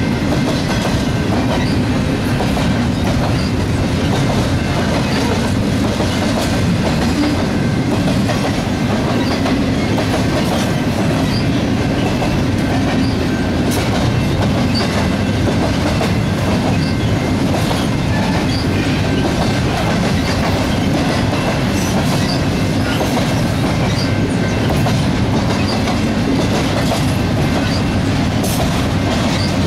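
Double-stack intermodal well cars rolling past at close range: a steady rumble of steel wheels on rail with irregular clicks over the rail joints, and a faint steady high whine.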